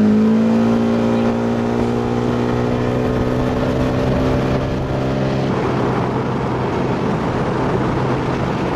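Outboard motor on an inflatable boat opened up to full throttle, its steady note climbing slowly as the boat gathers speed. About five seconds in the clear engine note gives way to a rougher rushing noise, with the engine still running underneath.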